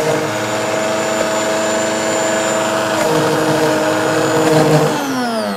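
High-powered countertop blender motor running at speed, blending a thick walnut, date and almond-milk mix. About five seconds in it is switched off and the motor starts spinning down, its whine falling in pitch.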